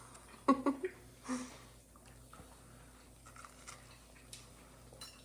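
A person chewing a mouthful of pan-fried dove breast, with a few short, louder mouth sounds near the start and faint soft clicks after.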